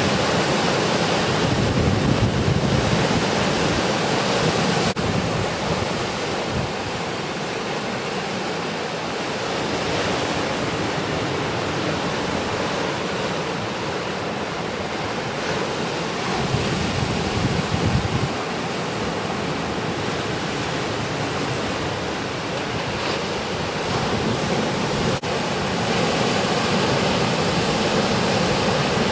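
Ocean surf breaking at a river mouth on a post-typhoon swell, a steady roar of waves with wind gusting on the microphone about two seconds in and again past the middle.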